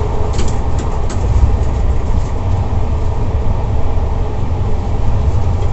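Steady low rumble of a moving passenger train, heard from inside an air-conditioned sleeper coach, with a few faint clicks near the start.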